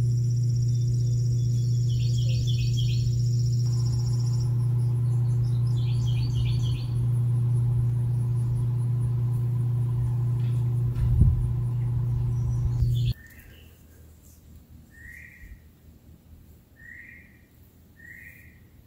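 Pad-mounted electrical transformer humming loudly and steadily, with bird chirps over it a few times and a brief thump about eleven seconds in. The hum cuts off suddenly about two-thirds of the way through, leaving a much quieter scene with short chirps every second or two.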